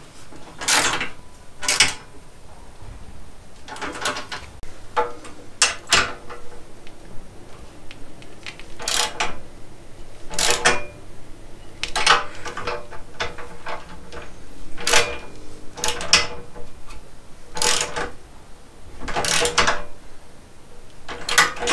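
Socket ratchet wrench clicking in short bursts as bolts are turned, a stroke every second or two.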